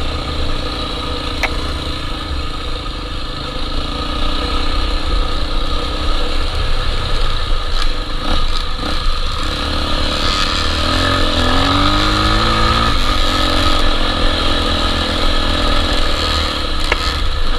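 Honda XR250 Tornado dirt bike's single-cylinder four-stroke engine running under way on a trail, the revs rising and falling about two-thirds of the way through.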